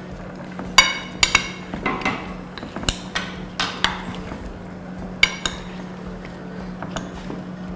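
Irregular sharp clinks of a metal spoon against a glass baking dish and small bowls, about ten over several seconds, some ringing briefly, over a steady low hum.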